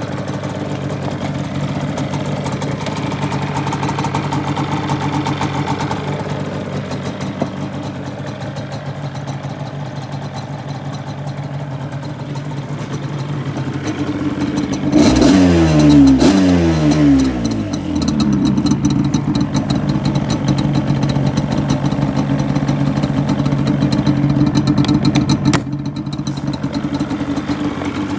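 Yamaha Banshee's 350 cc parallel-twin two-stroke engine idling, blipped up in revs about three times in quick succession around the middle, then settling back to a steady idle.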